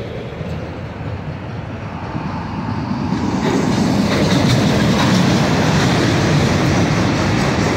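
Union Pacific manifest freight train's autorack cars rolling past, with steady wheel-and-rail noise and clickety-clack. The noise grows louder about three seconds in.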